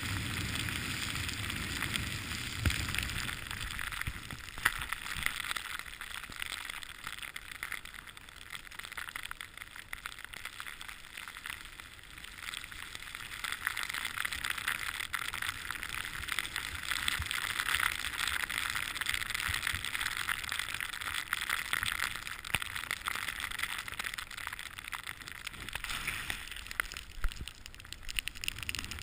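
Snowboard sliding over snow: a steady hiss of the board on the snow that fades and swells again, with a low rumble of wind on the microphone in the first few seconds.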